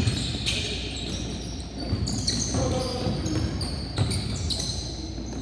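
A basketball bouncing on a hardwood gym floor, several dribbles, mixed with frequent short, high-pitched squeaks of sneakers as players cut and stop.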